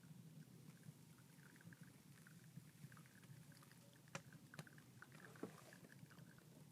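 Near silence: a faint steady low hum with scattered soft ticks and a few sharp light clicks about four to five and a half seconds in.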